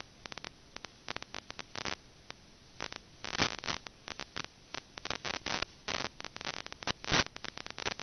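Static crackle from an analog FPV video link's audio channel with no microphone fitted: irregular sharp pops and short bursts of hiss, with the loudest clusters about three and a half and seven seconds in.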